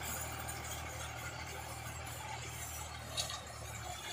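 Massey Ferguson 240 tractor's three-cylinder diesel engine running steadily while it pulls a seed drill, with a short clink about three seconds in.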